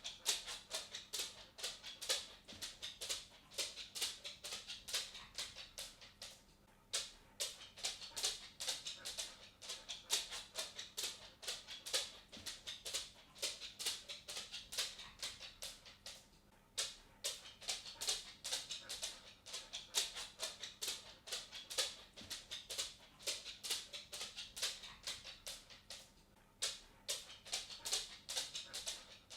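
A dog's claws clicking and tapping on a wooden floor as it walks, several quick taps a second, pausing briefly about every ten seconds.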